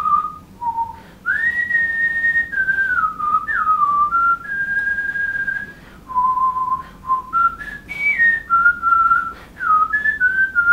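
A person whistling a slow tune: one clear note at a time between pauses, some notes held for about a second, with short slides up and down between them.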